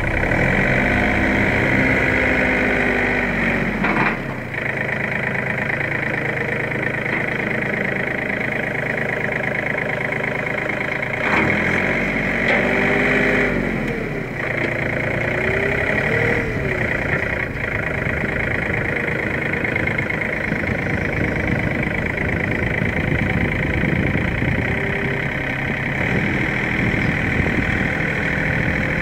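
John Deere 2720 compact tractor's three-cylinder diesel engine running steadily as the front-end loader works a compost pile. Its pitch rises and falls a few times partway through, and there are a few short clunks.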